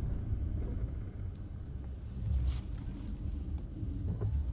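Cabin rumble of a Lorinser-tuned Mercedes-Benz S600 driving on a snow-covered road: a steady low drone of engine and tyre noise under a faint hiss.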